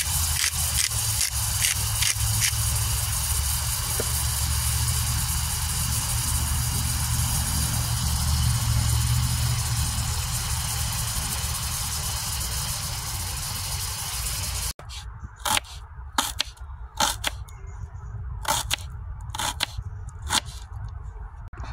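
Potatoes sizzling and spitting in hot fat in a metal pan, a loud steady hiss with scattered crackles over a low rumble. About fifteen seconds in it cuts to a knife chopping onion on a wooden board: about ten sharp, separate knocks.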